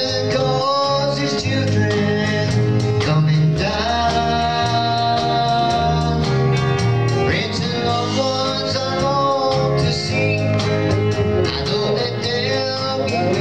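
Live country-style gospel band playing through a church PA, with electric bass, acoustic guitar and electric guitar.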